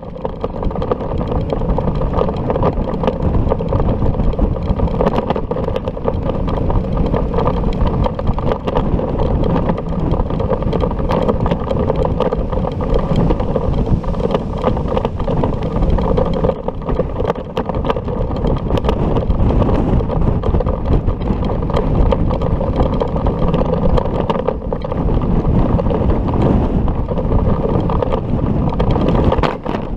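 Wind buffeting an action camera's microphone while riding along a road, a steady, muffled rush with road and vehicle rumble underneath.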